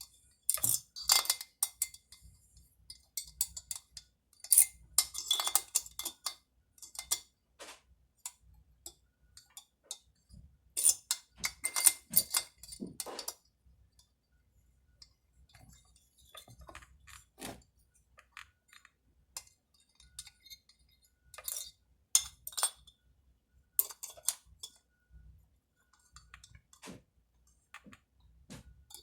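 Metal hand tools and chainsaw parts clinking and clicking during reassembly, in clusters of rapid clicks with quiet gaps between.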